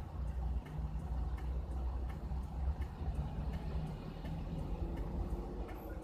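Car engine idling, heard from inside the stopped car as a steady low rumble, with a faint, regular ticking.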